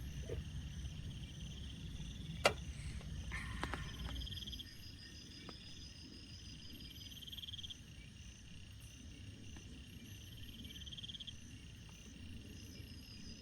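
Night chorus of calling animals: steady high chirping with a pulsed trill of about a second repeating every three to four seconds. A sharp click comes about two and a half seconds in, and a low rumbling noise underneath fades out about four and a half seconds in.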